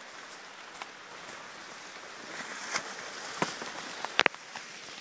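Steady rain hiss, with a few sharp clicks and taps scattered through it; the loudest is a quick double click about four seconds in.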